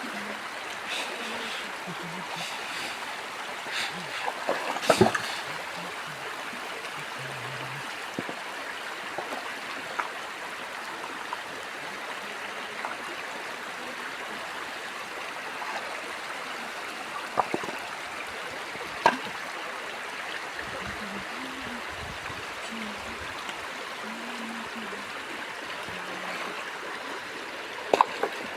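River water flowing steadily, an even rushing, with a few brief sharp sounds breaking through now and then.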